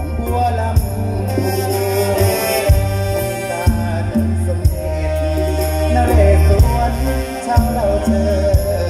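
Live mor lam band music played loud through a stage sound system, with a heavy bass line, a steady drum beat and a melody line over it.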